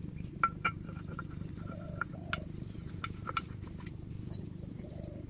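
Kirloskar-type stationary diesel water-pump engine running with a steady low, rapid thudding. A few sharp metallic clinks sound over it, the loudest about half a second in and more around two and three seconds in.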